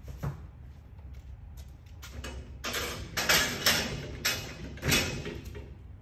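Front gate of a vertical cardboard baler being pulled down and shut: a knock, then several seconds of metal rattling and clanking bursts, loudest in the middle, over a low steady hum.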